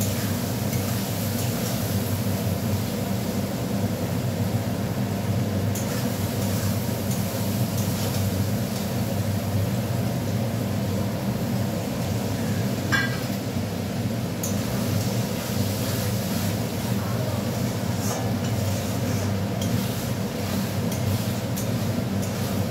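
A metal spoon scrapes and clinks against a steel kadai as onion-tomato masala is stirred while it fries down for ghugni. Behind it runs a steady low rumble, the loudest thing throughout, with a few sharp clinks, the clearest about 13 seconds in.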